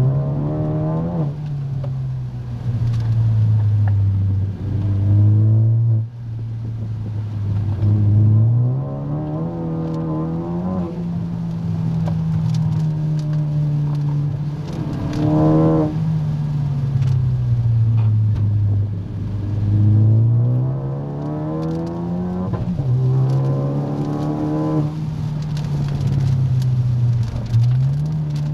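Car engine heard from inside the cabin, its pitch climbing and falling over and over as the car accelerates and eases off, with a few quick drops in pitch as gears change.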